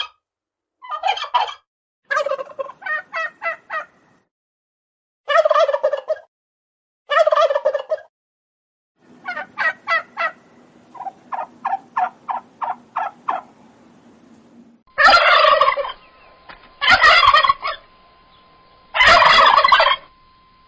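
Wild turkey gobbling, about ten separate gobbles, each a fast rattling call of a second or two. The last three are the loudest.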